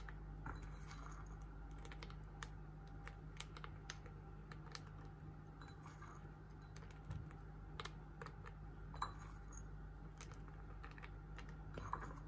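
Faint, irregular clicking of chopped cashew nuts being picked up by hand and dropped over cake batter in a cake tin, over a steady low hum.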